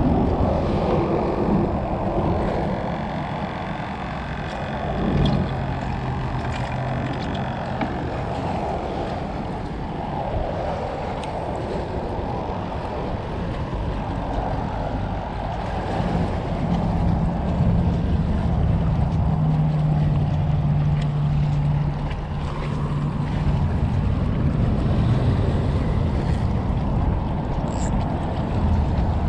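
Steady wind and water noise by the sea, with a low engine hum that comes in about five seconds in and again more strongly from about sixteen to twenty-four seconds.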